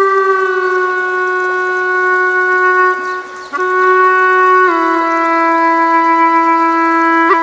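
Flute music playing long held notes. The first note slides slightly lower, there is a brief break about three and a half seconds in, and then it steps down to a lower sustained note.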